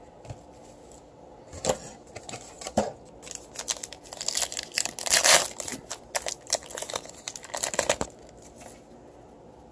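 A trading card pack's wrapper crinkling as it is handled and torn open by hand: a run of irregular crackles and rustles, loudest a little past halfway through.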